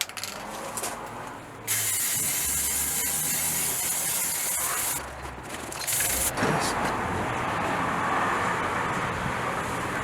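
Aerosol can of silver spray paint spraying: a long hiss of about three seconds that starts abruptly, then a short second burst. A steadier, duller rushing noise follows for the last few seconds.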